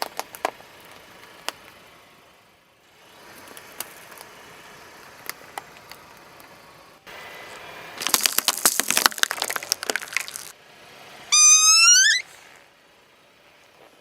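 Crackling and snapping of crunchy objects being crushed under a car tyre, at first a few scattered clicks, then a dense run of cracks. Near the end comes a short, loud squeal that rises in pitch.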